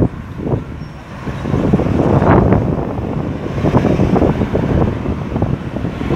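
Road traffic going round a roundabout close by: cars, an SUV and a pickup truck pass one after another. Engine and tyre noise dips about a second in, then swells and falls as each vehicle goes by.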